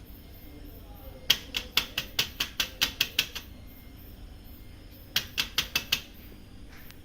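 Plastic pinion gear in the waste toner section of a Toshiba 2523A copier being turned by hand, giving two runs of rapid clicks, about five a second. The gear now turns freely, its jam from packed waste toner cleared.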